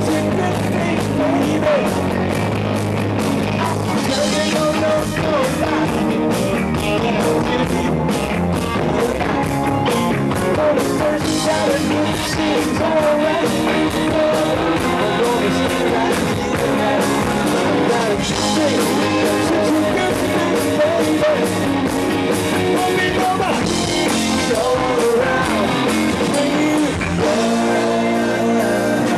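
Live rock band playing a 1960s-style rock and roll song with electric guitar, drums and a lead vocal.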